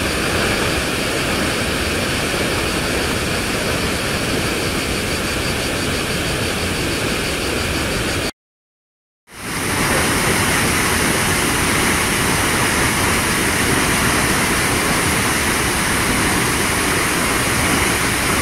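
Upper drop of the Cascata delle Marmore, the Velino river plunging into its pool: a loud, steady rush of falling water. It cuts out for about a second near the middle, then resumes.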